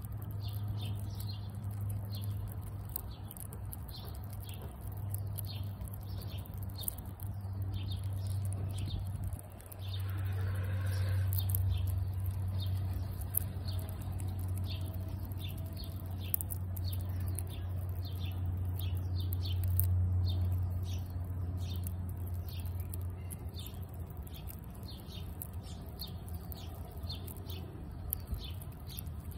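A fox squirrel chewing nuts held in its paws: a steady run of small crisp crunches, about two a second, over a steady low hum.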